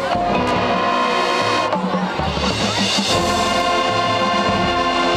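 High school marching band playing, with the brass holding loud sustained chords over low parts. The chords shift twice, about a second and a half in and again about three seconds in.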